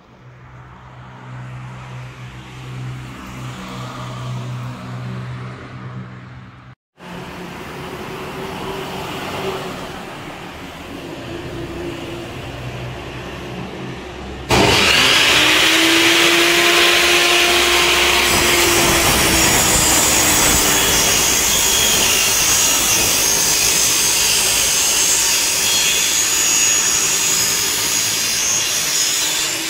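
Benchtop table saw running and ripping a reclaimed pine board: a loud steady whine with cutting noise, starting abruptly about halfway through. Before it, quieter background noise with a low hum.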